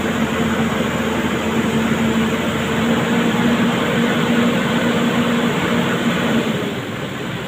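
Heavy diesel engine of an excavator running steadily, a low hum over a wide rumble. The hum drops away about six and a half seconds in.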